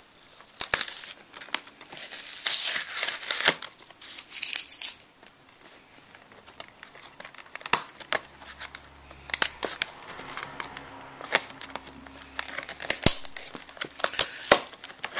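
Retail puzzle packaging being handled and opened: crinkling and tearing for the first few seconds, loudest about three seconds in, then scattered clicks and taps as the package is worked open.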